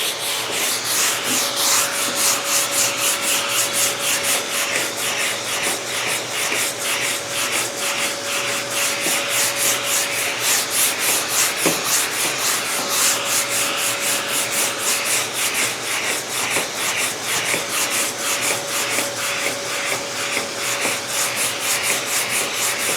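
Sanding block with 80-grit paper being worked by hand over a car's front fender in quick, even back-and-forth strokes, in a crisscross pattern to level high and low spots.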